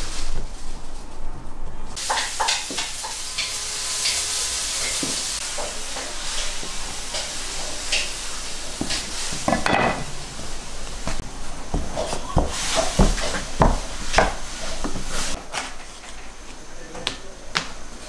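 Dough being worked by hand on a wooden board, with scattered clicks. A steady hiss runs from about two seconds in for some seconds, and a run of sharp knocks on the board follows in the second half.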